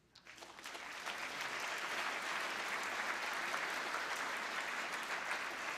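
Audience applauding, the clapping building up over the first second and then holding steady.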